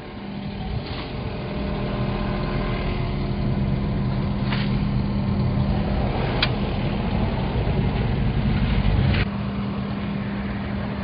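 A vehicle engine running steadily, building up over the first couple of seconds and dropping back suddenly about nine seconds in, with a few sharp clicks or knocks along the way.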